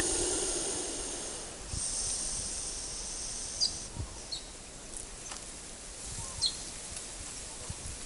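Lace monitor (goanna) hissing in two long breaths, each a second or two, over the first few seconds: a defensive warning from a lizard that feels cornered. A few short high bird chirps follow.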